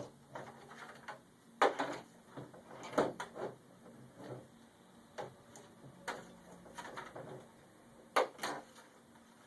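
Handling noise from wrapping the Vulcan anti-scale system's impulse band cable around a pipe and securing it with zip ties: irregular clicks, rustles and scrapes, with sharper knocks about a second and a half in, around three seconds in, and twice near the end.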